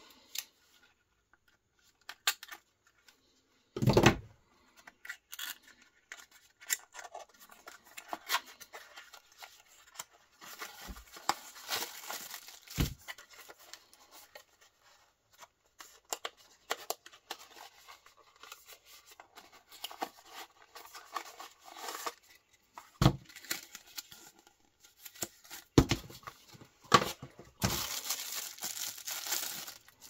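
Handling noises: rustling and scraping with scattered clicks, a knock about four seconds in, and a longer stretch of rustling near the end.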